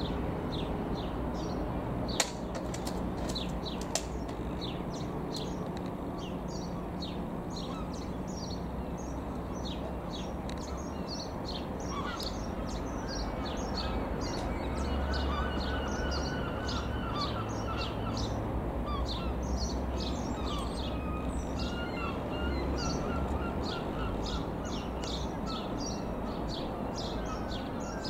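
Small birds chirping rapidly and continuously over the low, steady drone of a light aircraft's propeller engine passing overhead.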